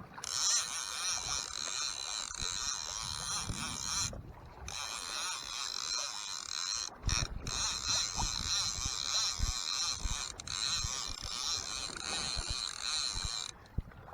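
Okuma trolling reel being cranked to wind in a long length of line, a steady whirring with short pauses about four, seven and thirteen seconds in.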